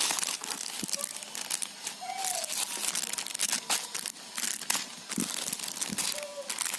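Packaging being handled and crinkled as the play gym's hanging toys are taken out, a continuous crackly rustle with many small sharp crackles.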